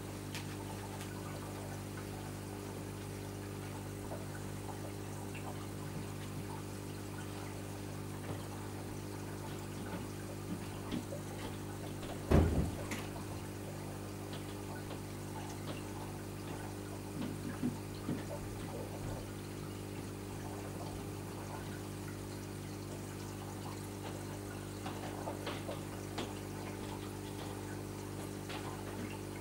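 Reef aquarium's water pumps humming steadily under a faint wash of moving, trickling water. A single sharp knock comes about twelve seconds in, with a few faint ticks later.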